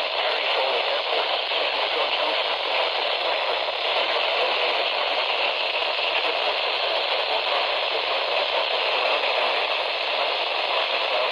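Steady hiss of radio static from a weather radio receiver on a weak, distant NOAA Weather Radio signal.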